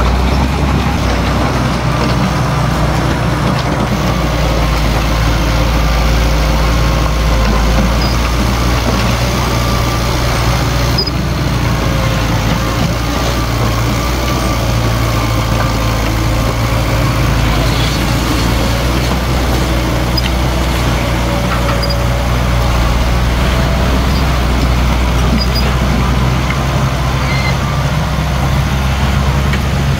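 Diesel engine of a Komatsu D21P crawler bulldozer running steadily under work, with a faint wavering whine above the engine note.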